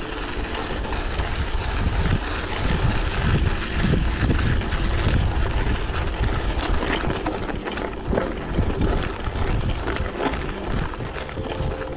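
Wind noise on the microphone over the rumble and rattle of a bicycle rolling over a rough path, with scattered small knocks.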